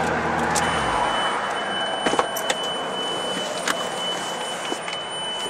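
Sports car engine running with a steady low drone, heard from inside the open-top car. It stops about a second in, leaving wind and road rush with a thin steady high whine and a few sharp clicks.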